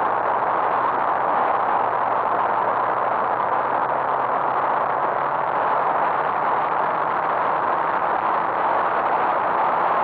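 Steady wind rush buffeting the microphone of a motorcycle riding at road speed, with a faint, even engine hum underneath.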